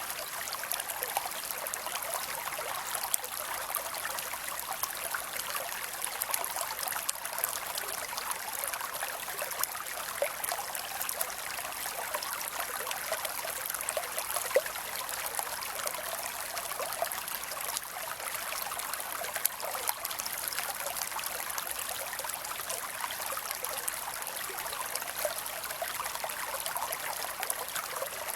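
A shallow creek flowing steadily, with water trickling and splashing over rocks in many small quick splashes.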